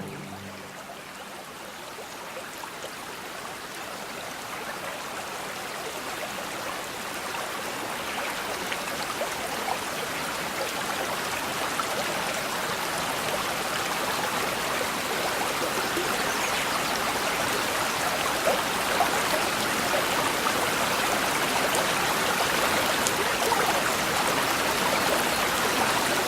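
Babbling brook: shallow water running and trickling over stones, a steady rushing that grows gradually louder as it fades in.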